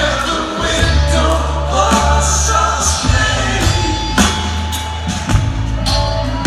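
Live rock band playing with a lead vocal: guitar, upright bass and drums, heard from the audience in a large hall.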